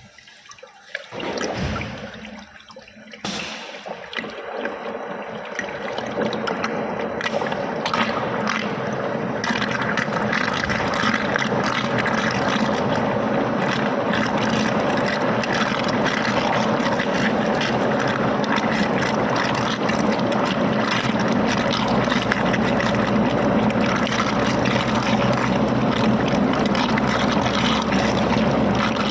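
Homogenizer mixer starting up: a few knocks in the first seconds, then a churning liquid sound with a low hum that builds over several seconds and settles into a steady run.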